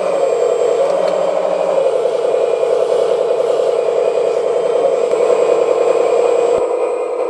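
RC4WD model hydraulic excavator running: its hydraulic pump whirs steadily under the Beier sound card's simulated diesel engine sound. A lower note cuts in and out in the first two seconds, and the sound changes with a click near the end.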